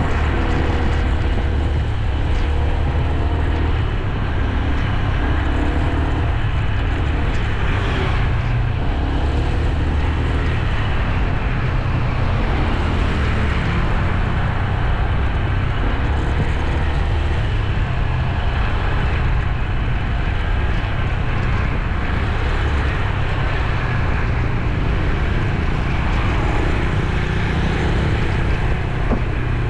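Motorbike engine running steadily while riding at an even speed, mixed with rushing road and wind noise.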